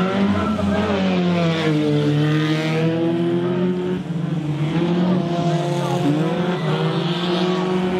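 Small stock-car racing engines running hard on a dirt oval. In the first second one car passes close, its engine note rising then falling. The engines then hold high revs through the bend.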